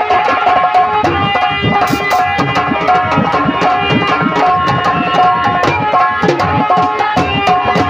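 Live instrumental music: a hand drum played in a quick, busy rhythm over steady held melody notes.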